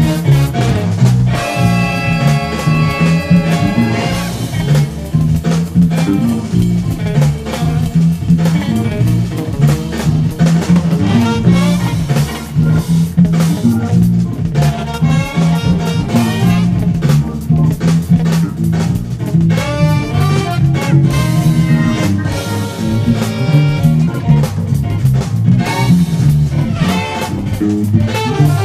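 Electric bass played fingerstyle along with a funk recording, the syncopated bass line prominent over a drum-kit groove, with horn-section riffs coming in at several points.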